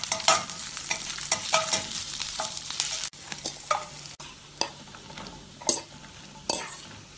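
A steel spatula stirs and scrapes ginger, garlic and green chillies sizzling in hot oil in a stainless steel kadai, with sharp metal clinks. About three seconds in the sizzling dies down, and diced turnip tipped from a steel bowl lands in the pan with scattered knocks and clinks.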